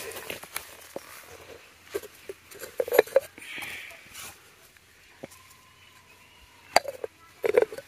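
Scattered light clicks and knocks of clay pot lids and pieces of cooked meat being handled and dropped into small clay pots, with a quick cluster of clinks near the end.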